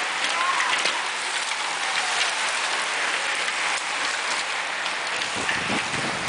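A bunch of road-racing bicycles passing close by on wet asphalt: a steady hiss of tyres on the wet road.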